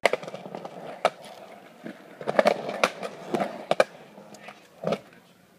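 Irregular knocks and scuffs over a low steady rumble, from someone moving fast on foot with a phone in hand, the loudest knock near the end.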